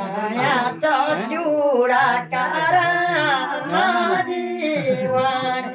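Singing voices carrying a gliding melody, with no instruments heard.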